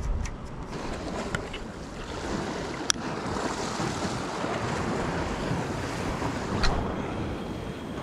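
Sea waves washing, with wind buffeting the microphone. Two sharp clicks stand out, a few seconds apart.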